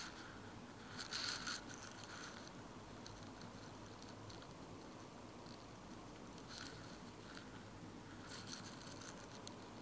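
Stylus scraping and tapping faintly on a tablet's glass screen as letters are handwritten, in short scratchy bursts about a second in, again around six and a half seconds, and near the end.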